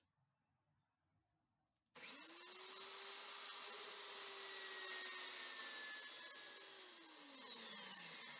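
A workshop electric motor switches on about two seconds in, with a whine that quickly rises to a steady pitch over a rush of air. Near the end the whine falls in pitch as the motor winds down.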